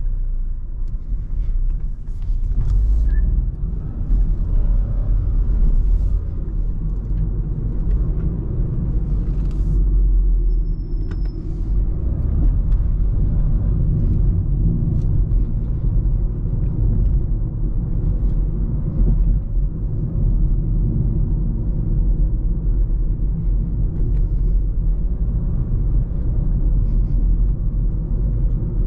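In-cabin engine and road rumble of a BMW 2 Series Active Tourer (F45) with a 1.5-litre petrol engine, driving at city speeds. The sound rises sharply at the start as the car pulls away, then holds a steady low rumble.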